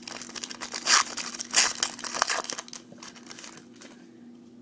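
Trading card pack wrapper being torn open and crinkled by hand, a run of crackles loudest about a second and a half in that dies away by about three seconds.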